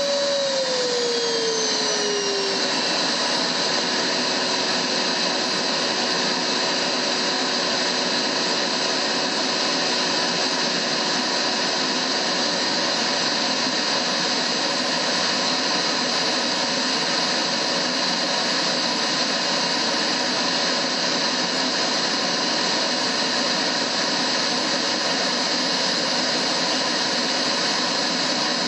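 Vacuum cleaner running steadily. Its motor whine drops in pitch over the first couple of seconds as it settles after start-up, then holds under a steady rush of air.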